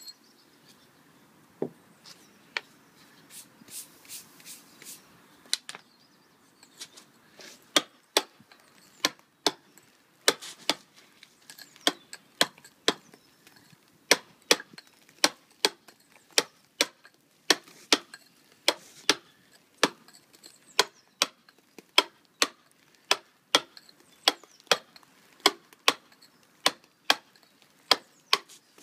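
Mason's dressing tool striking a sandstone quoin to give it a stugged finish, in sharp ringing blows. The blows are sparse and irregular at first, then settle into a steady rhythm of about two a second from about seven seconds in.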